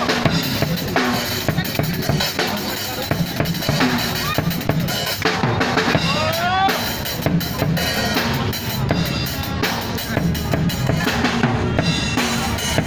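Drum-heavy music with a steady, busy beat of kick and snare drum. A few short rising sounds ride over it about halfway through.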